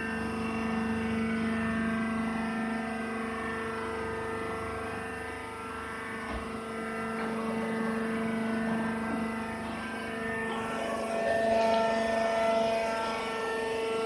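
Rice husk press baler running with a steady machine hum, its pitch unchanging. About ten seconds in, extra higher tones join and it gets a little louder.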